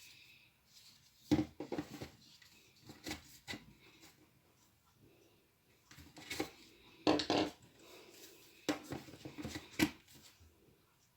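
Irregular clicks, knocks and clatter of hard objects being handled, coming in short clusters with pauses between; no drill motor running.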